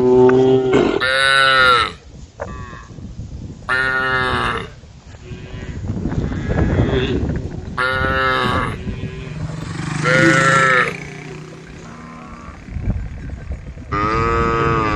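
Cows mooing to the herd: about five long moos a few seconds apart, some rising in pitch.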